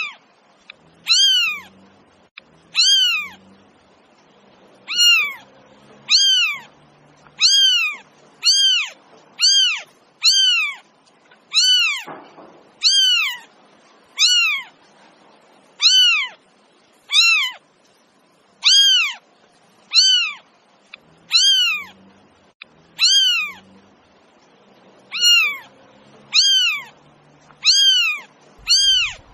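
A domestic cat meowing over and over, about once a second; each meow is short and rises then falls in pitch, and the meows are near-identical.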